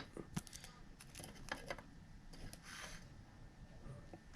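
Faint handling of baseball trading cards: a few soft clicks and a brief rustle as cards are slid and flipped through by hand.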